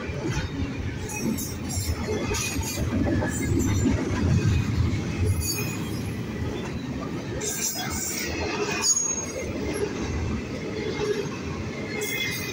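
Double-stack intermodal freight train's well cars rolling past close by: a steady heavy rumble of wheels on rail, with brief high-pitched wheel squeals and clanks scattered through it.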